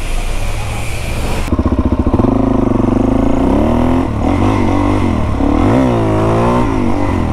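A pressure-washer wand hisses briefly. It then gives way abruptly to a Suzuki motorcycle's engine accelerating, the pitch rising and dropping back several times as the rider shifts up through the gears.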